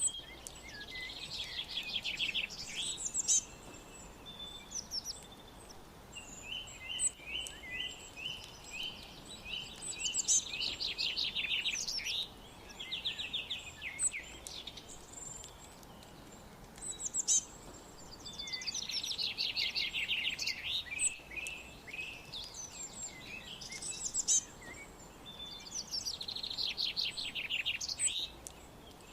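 Songbirds singing over a soft steady hiss. A fast, trilling song phrase comes back roughly every eight seconds, with strings of short repeated chirps in between.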